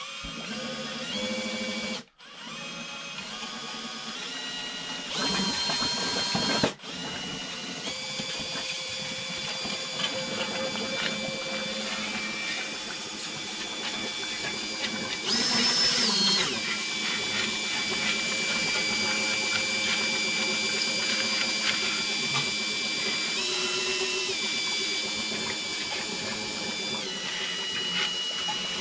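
Cordless drill driving a small pump that sucks thick old oil paste out of a Nuffield tractor's axle housing. The drill whines steadily, its pitch stepping up and down several times as its speed changes, and cuts out briefly twice in the first seven seconds.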